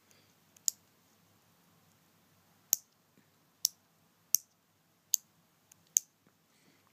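Small plastic on/off slide switch on an RC car's electronic speed controller being flicked back and forth: about six sharp clicks at uneven intervals. The switch snaps firmly, with no play in it.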